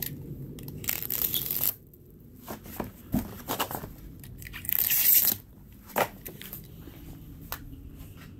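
Clear plastic stretch wrap being cut and torn off a rolled rubber bed mat: two loud ripping tears, one about a second in and one about five seconds in, with crinkling, rustling and small knocks between.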